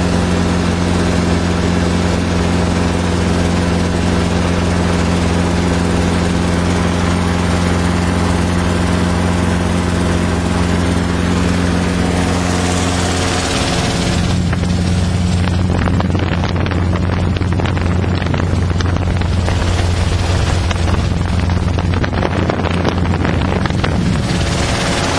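Small personal helicopter's engine and rotor running steadily, close by. About halfway through the sound turns rougher and less hissy, with a fast pulsing. Shortly before the end it settles back to the earlier steady running.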